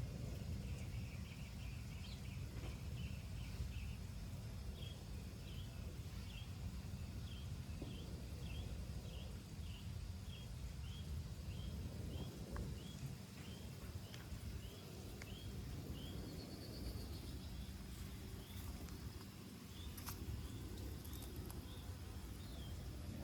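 A bird calling a long series of short, high chirps at about two a second, over a steady low outdoor rumble; the chirping pauses briefly about two-thirds of the way through, then resumes more sparsely.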